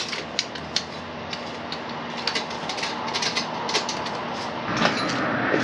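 Drill-driven hole saw cutting through a carbon fibre panel, a steady grinding din with many irregular sharp clicks and rattles. The sound gets heavier and lower about four and a half seconds in.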